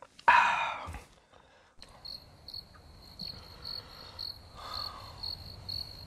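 A loud breathy exhale near the start. Then, from about two seconds in, a cricket chirps steadily, about three short high chirps a second.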